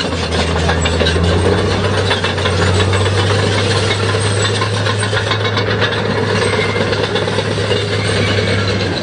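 A vehicle engine running at a steady low drone, under a dense, rough crackling noise; the drone stops near the end.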